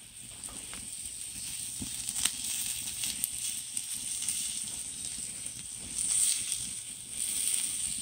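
Wood fire crackling and hissing under a grill of beef skewers, with scattered sharp pops and a couple of louder swells of hiss.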